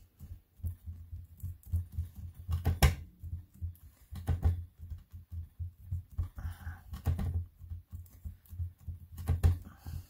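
Hands pressing and tapping a polymer clay cane block on a plastic cutting mat to square it up: an irregular string of dull low thumps with a few sharper clicks.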